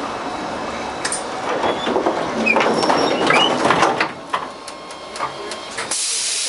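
Interior of an LM-68M tram: running noise dies away with a cluster of knocks and clunks, then a steady hiss starts about six seconds in.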